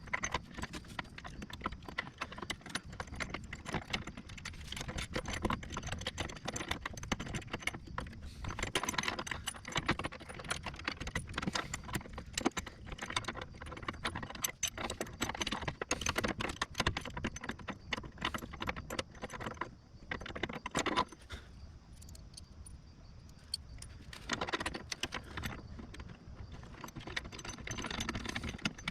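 Steady run of irregular metallic clicks and clinks from a hand wrench working the bolts of a steel skid plate bracket, with a short quieter pause about two-thirds of the way through.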